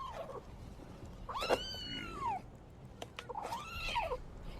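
A cat meowing: two drawn-out meows about two seconds apart, each rising and then falling in pitch, after the tail end of an earlier one.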